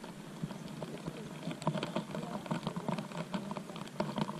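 Irregular soft crackling and rustling of grass and clothing close to the microphone as a person settles down on the ground next to it.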